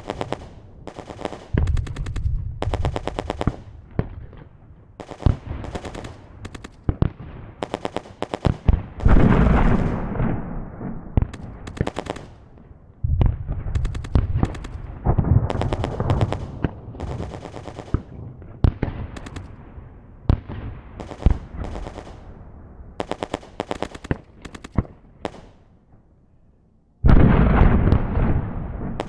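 A run of gunfire sound effects: one after another, short bursts of rapid automatic fire, each a string of sharp shots with a low thump under them, separated by brief pauses. Near the end comes a louder, longer blast.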